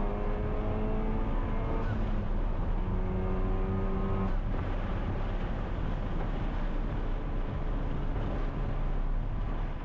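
Inside the cabin of a Honda Civic Type R (FK8), heard on the highway: its turbocharged 2.0-litre four-cylinder, fitted with a Pure550 upgraded turbo, has an engine note that rises steadily and then drops away about four seconds in, leaving steady road and tyre noise.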